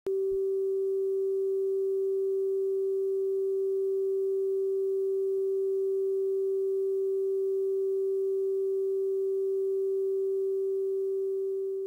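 Steady line-up test tone played over SMPTE colour bars at the head of a videotape: one unwavering pure tone, starting to fade near the end.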